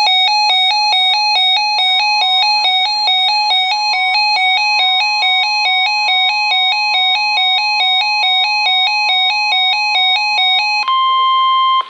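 Emergency Alert System attention signal: a loud, harsh electronic tone alternating rapidly between two pitches, with a steady higher tone joining about two seconds in. Near the end the alternating tone stops, leaving the steady tone alone for about a second before it cuts off. It is the alert signal that announces a National Weather Service warning about to be read.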